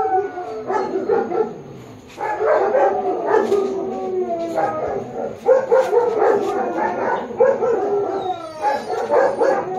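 Akita dog whining and howling in long cries that slide down in pitch, one after another, with a short lull about two seconds in. These are the cries of a frightened dog during mating.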